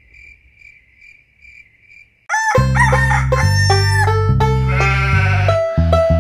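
A faint high chirping in an even pulse, then about two seconds in a rooster crows as loud music starts and carries on.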